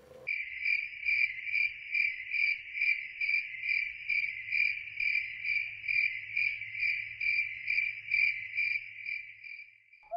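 Cricket chirping in a steady rhythm, about two chirps a second. It starts abruptly and stops just before the end.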